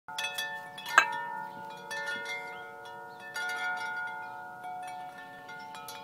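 Large 50-inch tubular wind chime with long dark tubes, struck several times by its centre striker. The tones ring on and overlap, and the sharpest strike comes about a second in.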